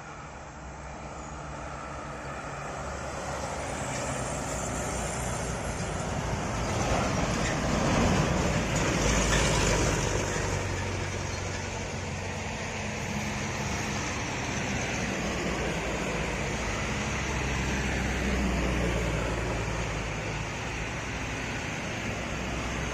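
Mitsubishi Canter diesel truck, heavily loaded with oil palm fruit, labouring up a steep climb with its engine under hard load. It grows louder as it nears and is loudest about eight to ten seconds in, then runs on steadily.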